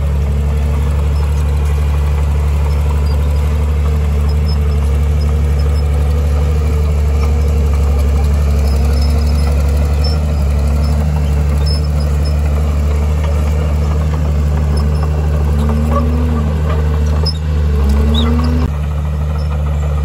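Heavy diesel engine of an earth-moving machine running steadily: a deep, loud drone whose pitch rises and falls slightly now and then.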